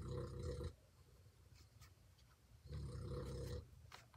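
Puppy snarfling: two snoring-like breaths about a second long each, the second about three seconds after the first.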